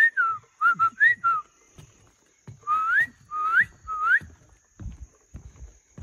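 A person whistling to call someone: a quick run of short up-and-down notes, then three whistles that each slide upward in pitch. Faint low thumps of footsteps sound underneath.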